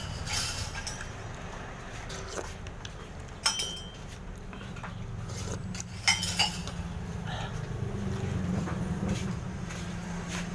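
Metal spoon and fork clinking against a ceramic soup bowl a few times, sharpest about three and a half seconds in and twice around six seconds in, over a steady low background hum.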